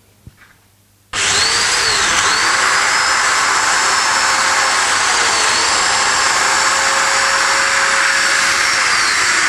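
Festool Domino joiner switched on about a second in and running loudly and steadily while cutting a slot: a rushing motor noise whose whine dips in pitch a few times.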